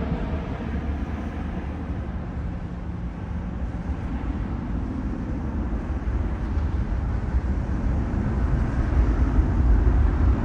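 Jet engines of a departing Boeing 777 producing a deep, steady rumble at takeoff power, growing louder over the last couple of seconds.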